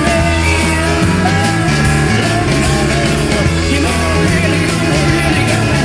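Rock music with singing over a steady bass line and drum beat.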